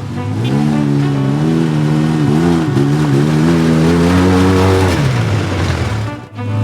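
A 6x6 kei mini truck's engine revving under load on a trail climb, its pitch rising and wavering, then dropping away about five seconds in.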